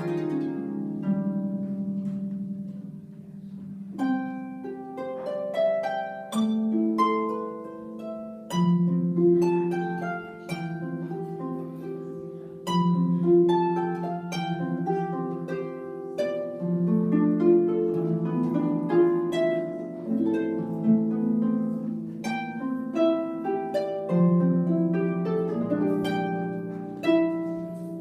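Solo music on a plucked string instrument: notes and chords plucked and left to ring out, with low bass notes held under a melody.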